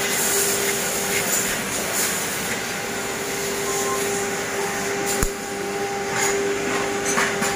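Steady workshop machine hum and hiss with one constant tone, a sharp click about five seconds in and a few light knocks near the end.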